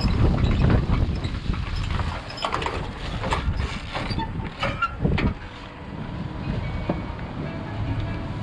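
A loaded junk-removal truck being unpacked: a mesh cargo net and plastic-wrapped load rustling as it is pulled back, with cardboard being handled and thrown and scattered knocks and clatters over a low steady rumble.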